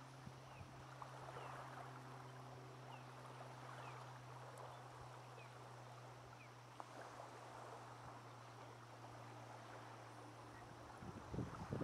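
Faint small waves lapping on a pebble shore over a steady low hum. Short, high, falling chirps repeat through the first half, and a few low thumps come near the end.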